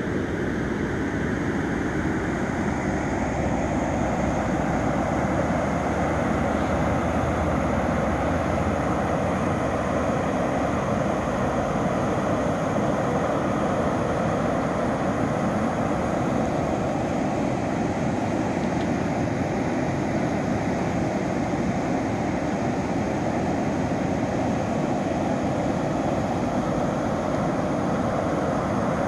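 Creek running high and full: a steady rush of water.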